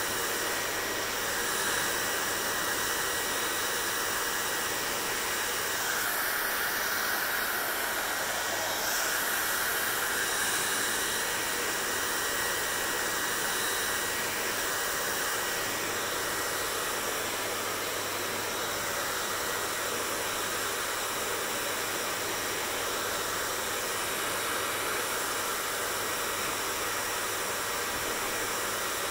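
Hair dryer blowing steadily: a continuous rushing air noise over a low hum, swelling a little for a few seconds about a quarter of the way in.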